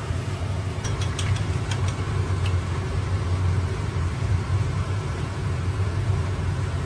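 A steady low mechanical hum, with a few light clicks about one to two and a half seconds in.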